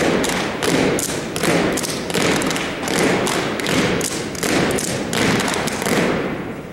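An unarmed drill team striking in unison: a string of sharp slaps and thuds, about two a second, echoing off a gymnasium's hard walls. The strikes stop about six seconds in as the team comes to rest.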